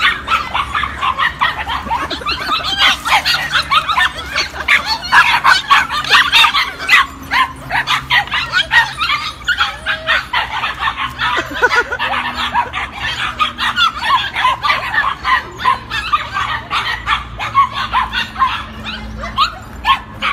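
Several puppies yapping and barking in rapid, overlapping high-pitched yips, with some whimpering.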